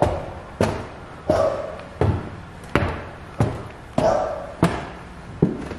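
Footsteps climbing open steel stairs: a steady series of about nine heavy footfalls on the metal treads, several of them leaving the tread ringing briefly.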